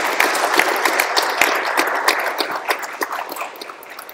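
Audience applauding at the end of a talk; the clapping thins out and fades toward the end.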